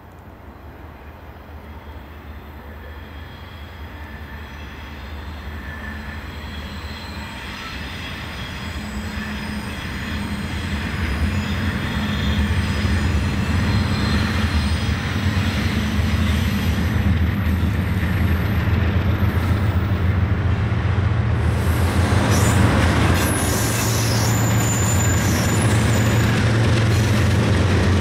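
Norfolk Southern freight train led by two diesel locomotives approaching, their engine drone growing steadily louder over about a dozen seconds, then passing close by. In the second half a high-pitched wheel squeal rides over the drone as the train takes the curve.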